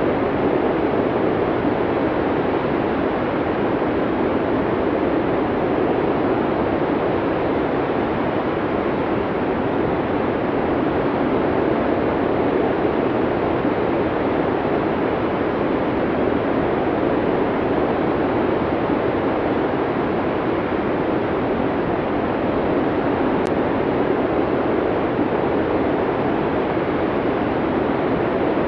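Snowstorm wind blowing steadily as a dense, even rush of noise, deepest in the low middle, with no gusts or changes.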